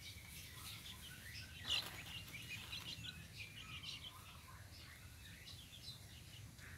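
Young kampung (village) chickens peeping and chirping in many short, high calls, with one louder call about two seconds in.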